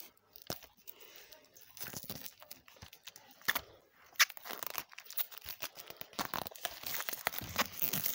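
Plastic wrapping on a DVD case crinkling and tearing as it is pulled off: scattered crackles at first, growing denser and more continuous from about halfway.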